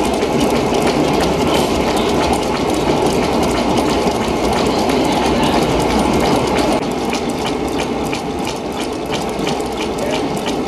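The working model of a 1930s Fourdrinier paper machine running: its belt-driven pulleys and spur-gear trains clatter with rapid, steady ticking, a little quieter from about seven seconds in.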